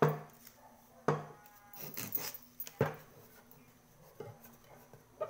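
Hands rubbing and pressing tape onto the bottom of an upturned small metal pot, with three sharp knocks of the pot, each ringing briefly, and a rubbing scrape between them.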